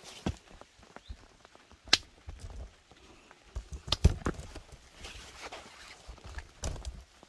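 Slow footsteps on wet garden ground, a few separate sharp steps or knocks a second or two apart, the loudest about four seconds in, over a low handling rumble from the phone.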